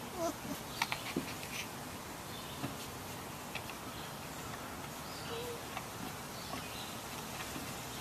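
Samoyed puppies playing, with a few faint squeaks and a cluster of short clicks about a second in, over a steady background hiss.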